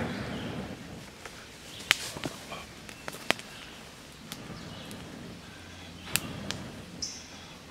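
A breath blown into a small split-cedar fire at the start, then a few sharp cracks and snaps from the burning kindling, the loudest about two and three seconds in and a couple more near six seconds.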